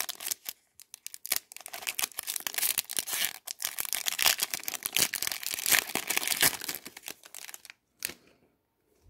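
Foil wrapper of an O-Pee-Chee Glossy hockey card pack crinkling and tearing as it is ripped open by hand: a dense run of crackles that stops near the end.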